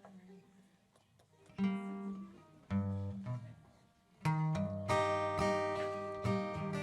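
Acoustic guitar: two single strummed chords left to ring, then steady strumming starts about four seconds in.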